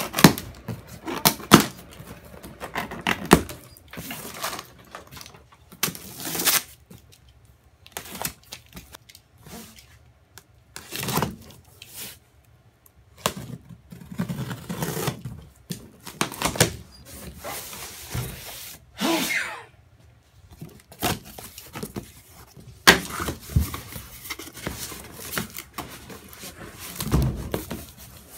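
A cardboard shipping box being unpacked: plastic packing straps pulled off, packing tape slit with a knife, and the cardboard flaps and plastic wrapping of a rolled foam block handled. It comes as a run of irregular clicks, rips, knocks and scrapes, with one longer tearing scrape about two-thirds of the way in.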